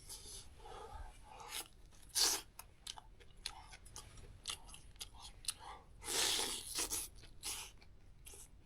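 A person eating close to the microphone: chewing and biting food, with irregular crunches and short clicks and a couple of longer noisy bursts about two and six seconds in.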